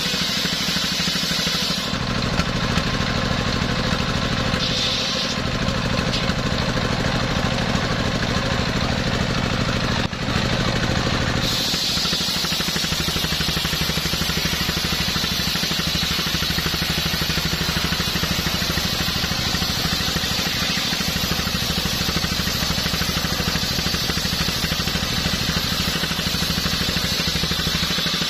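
Stationary diesel engine of a mobile sawmill running steadily under load, driving a circular saw blade through a coconut-palm log with a high cutting hiss. The hiss drops out about two seconds in and comes back near the middle, while the engine runs on unchanged; rain falls throughout.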